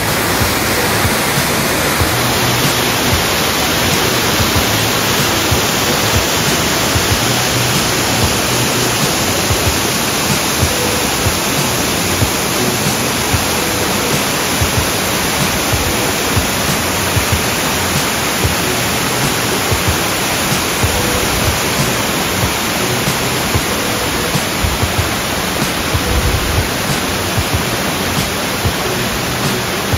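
A steady, loud rushing noise with no tone or rhythm in it.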